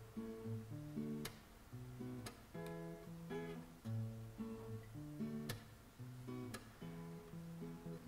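Background music played on guitar: plucked notes in a repeating pattern, with an occasional strum.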